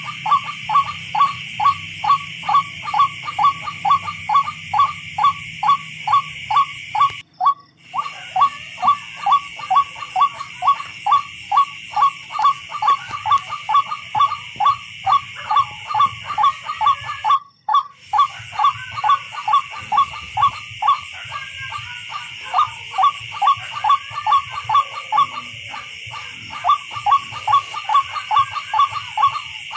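Tikling (barred rail) calling: a long even series of short, sharp notes, about two a second, over a steady high hiss. The series cuts out briefly twice.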